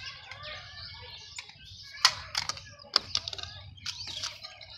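A run of sharp, irregular clicks and taps in the second half, with birds chirping in the background.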